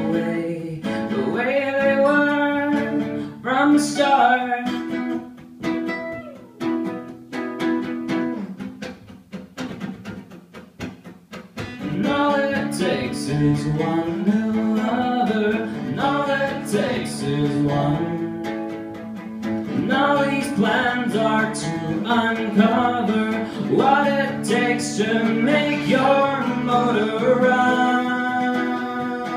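A live acoustic duo: two acoustic guitars strummed and picked with a man singing the lead vocal over them. The playing drops to a softer, sparser passage about a fifth of the way in, then the full guitars and voice come back.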